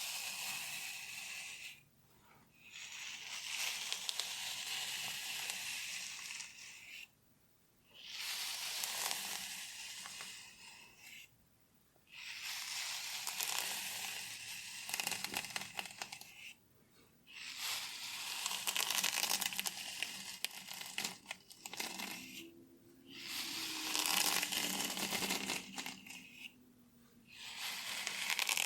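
Close-miked fingernails scratching through hair on a scalp, in long rasping strokes of a few seconds each with short pauses between, about seven in all.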